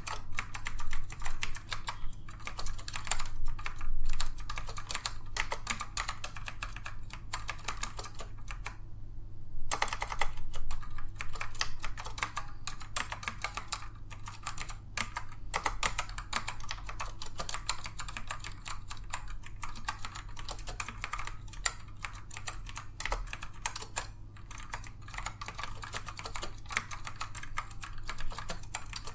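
Dell AT102W mechanical keyboard with black Alps switches being typed on in a fast, continuous stream of non-clicky key presses, with a brief pause about nine seconds in.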